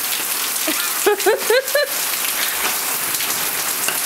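Heavy rain pattering steadily on hard wet surfaces. About a second in, a quick run of four or five short, high-pitched rising calls rises above it.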